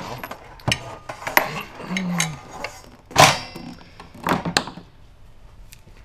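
Handling noise from espresso-machine parts being moved and set down: a few knocks and taps with rustling between them, the loudest knock about three seconds in.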